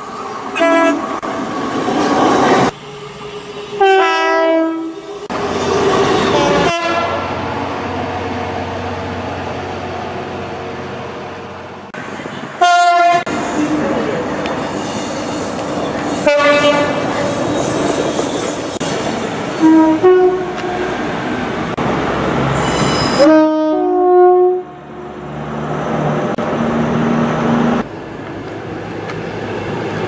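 Two-tone horns of British diesel trains sounded about six times, each stepping between a high and a low note, some short and some long, as trains approach and pass. Between the blasts, the steady running of the engines and the clatter of the wheels.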